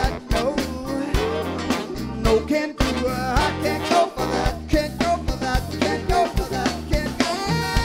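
A live funk band playing, with a steady drum-kit beat, bass guitar and electric guitar under sung vocals.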